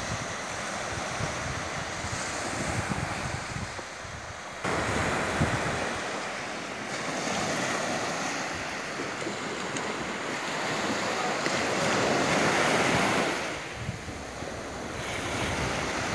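Small surf washing onto a sandy beach, with wind buffeting the microphone. The sound steps up abruptly about four and a half seconds in, and a louder wash of breaking surf comes in the last third.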